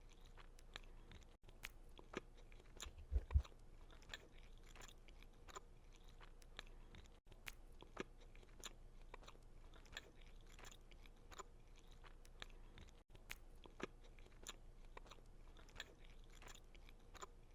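Faint chewing of a soft sugar cookie with cream topping: small wet mouth clicks and smacks at irregular intervals, with one dull low thump about three seconds in.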